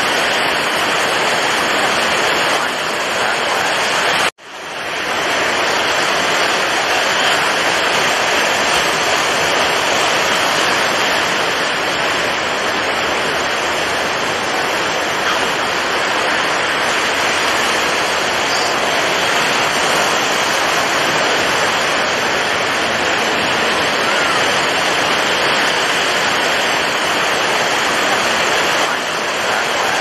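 Steady, dense rush of rough sea water, with no separate wave crashes standing out. About four seconds in it cuts out abruptly and fades back up within a second.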